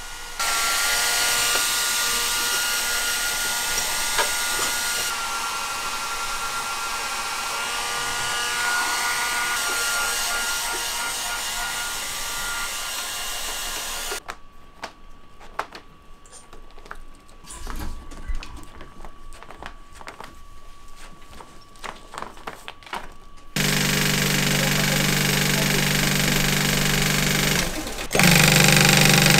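A steady hissing machine noise with a thin whine for about fourteen seconds, then quieter workshop sounds with scattered clicks. About 23 seconds in, an industrial sewing machine's motor starts a low steady hum, getting louder near the end as it stitches a leather belt strap.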